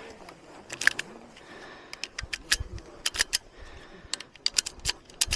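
Rapid, irregular metallic clicks in small clusters: .38 Special cartridges being handled and pushed one by one into a Henry Big Boy X lever-action rifle during a reload under the clock.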